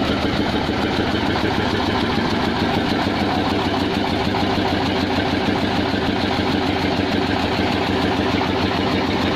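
Engine of a homemade 'grandong' dump truck idling steadily.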